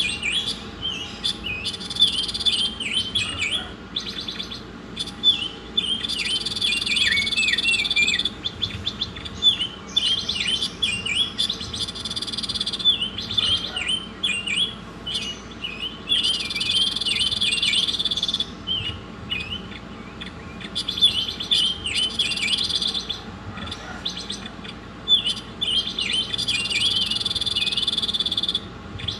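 Songbird singing a continuous, busy song of rapid high chirps and twitters, broken every few seconds by a long buzzing trill lasting a couple of seconds.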